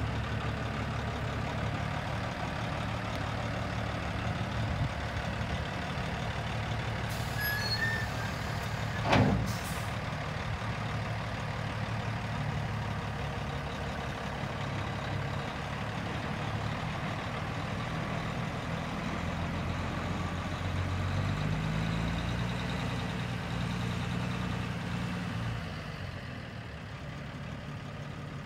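1998 International dump truck's diesel engine running steadily, with one short sharp burst of sound about nine seconds in. The engine note rises and falls again about twenty seconds in as the truck pulls away.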